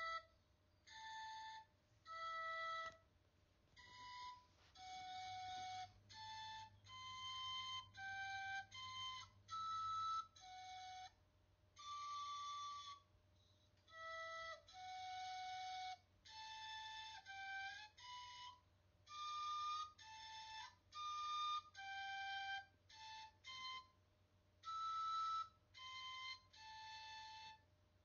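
End-card music: a solo woodwind melody, most likely a flute, playing single notes one after another with short breaks between phrases.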